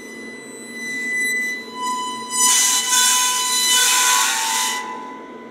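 Sheet-metal shell of a heater-coil dummy load buzzing with the amplifier's test tone, shaken by the magnetic field around the heater coils. The tone swells from about a second in, turns into a loud, harsh buzz for about two seconds as the amplifier is cranked up, then eases off.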